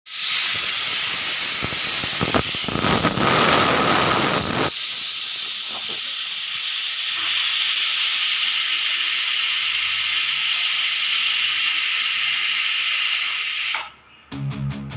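Pressure cooker whistle blowing off steam: a loud, steady high hiss with whistling tones, fuller and louder for the first five seconds or so, then cutting off suddenly near the end.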